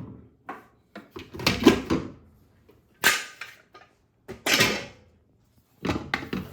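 Metal cooking pot and lid being handled, with several loud knocks and scrapes of metal on metal, the loudest about a second and a half in.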